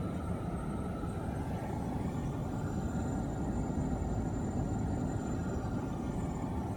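2016 Kia Sorento SX+ running with the climate fan blowing, over which a faint, thin, steady metal-on-metal squeal keeps on, seeming to come from the front of the engine or the vent. The cause is not yet known.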